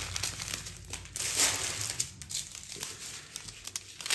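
Small plastic bags of diamond-painting drills crinkling and rustling as they are handled and sorted, irregularly, loudest about a second and a half in.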